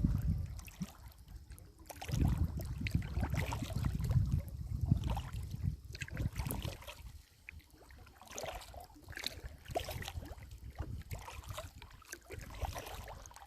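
Kayak paddling: water splashing and trickling off the paddle blades stroke after stroke, over a low rumble. It is louder for the first few seconds and softer later on.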